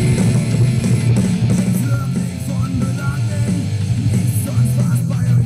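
Rock music with guitars playing loudly from a 2.1 soundbar and subwoofer, streamed over Bluetooth from a phone, with a heavy bass line.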